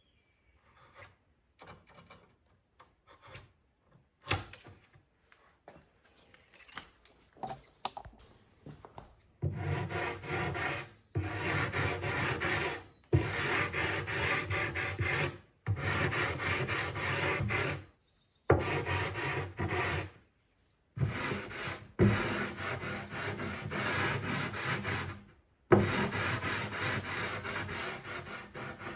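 Sanding on maple plywood: light scattered taps and clicks at first, then about nine seconds in a run of steady sanding spells, each a second or two to a few seconds long, broken by short abrupt gaps.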